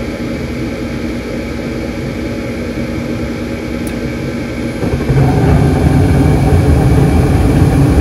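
Bryant gas furnace running with a steady hum from its inducer motor while the igniter heats. About five seconds in, the six gas burners light, and the sound jumps to a louder, steady low rumble of burning gas: normal ignition after the igniter reaches temperature.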